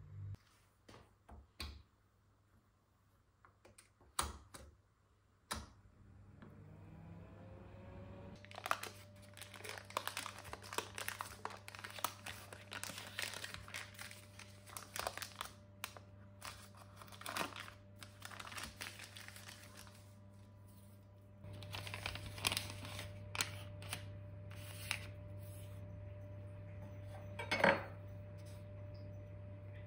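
Foil butter wrapper crinkling and rustling as a block of butter is unwrapped by hand, after a few light clicks. A steady hum comes in about a quarter of the way through, rising in pitch as it starts, and runs under the rustling.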